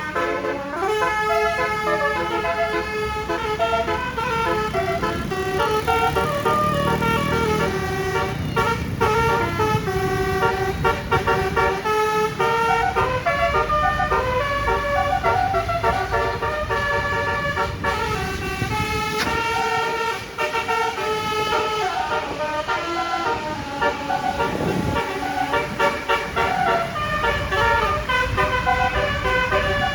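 Telolet basuri multi-trumpet bus horn playing a long melody of stepped notes, over a low rumble of engine and traffic.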